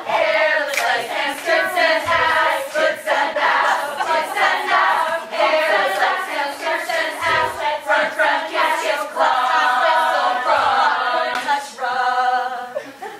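Women's choir singing in quick, rhythmic, chant-like phrases. Near the end the voices settle on one held chord, which then fades out.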